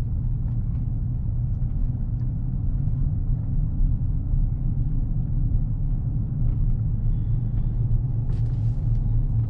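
Steady low rumble of a moving vehicle's engine and road noise, heard from inside the cab.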